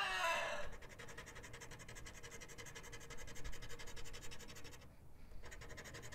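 A rooster's crow trailing off and ending under a second in, then a scratch-off lottery ticket being scratched with quick, even strokes, pausing briefly about five seconds in.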